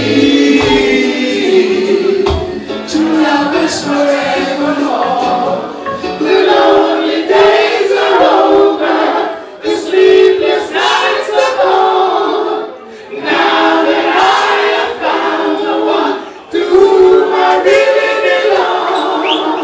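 Live reggae vocal group of several men singing together in harmony into microphones, in phrases with short breaks between them.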